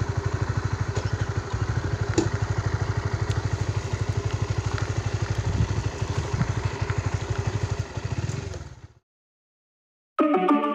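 Motorcycle engine running at a steady, fast putter as it rides along a road; it fades out about a second before the end, and music begins.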